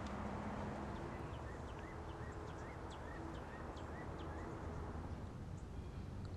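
A bird calling in a quick series of short, repeated chirps, about three a second, with a steady low rumble of outdoor background noise underneath.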